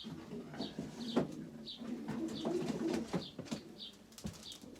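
Pigeons cooing, with several sharp clicks near the end.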